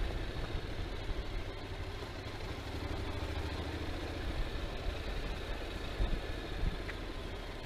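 Motorcycle engine running steadily, with a continuous rush of noise over it.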